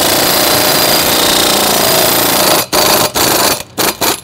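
Matco MT2220 3/8-inch impact wrench hammering continuously on a lug nut torqued to about 200 ft-lb to break it loose, then four short bursts about two and a half seconds in as the nut comes off.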